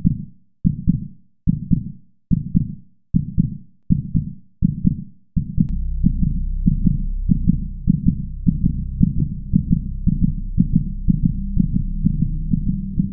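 Heartbeat sound effect: low, evenly paced double thumps a little more than once a second. About five seconds in, a steady low drone comes in underneath while the thumps go on.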